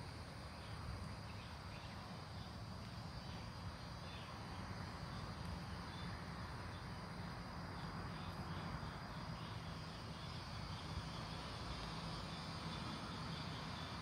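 Faint outdoor chorus of insects chirping, a thin high steady trill with soft repeating pulses, over a low steady rumble.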